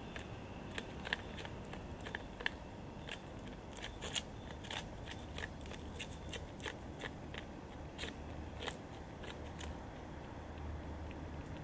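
A cat chewing food, with quick, irregular crunches several times a second that thin out near the end.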